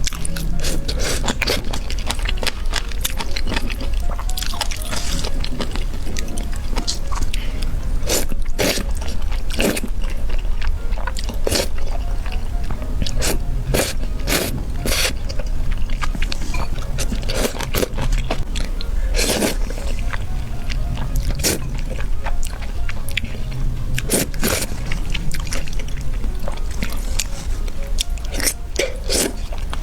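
Close-up eating sounds: chewing and biting food, with many sharp, irregular crunchy clicks, over steady background music.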